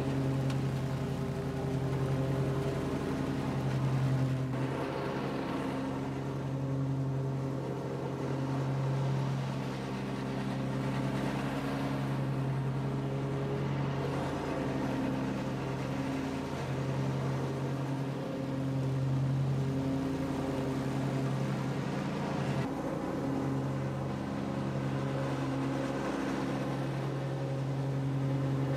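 Dixie Chopper Blackhawk zero-turn mower's engine running steadily under load with the cutting blades engaged, mowing grass. Its tone shifts slightly a few seconds in and again later on.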